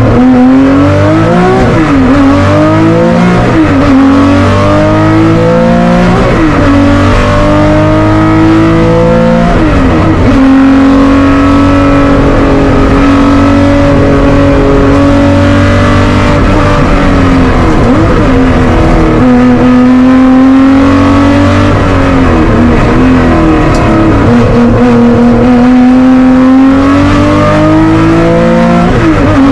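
Porsche 911 Group 4 race car's air-cooled flat-six, loud inside the cockpit, driven hard uphill. The engine note climbs and drops sharply about half a dozen times at gear changes and lifts for corners, holding near steady between.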